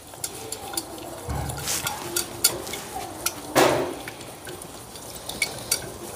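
Whisk clicking and scraping irregularly against a metal sauté pan while stirring a honey and oil sauce together over low heat.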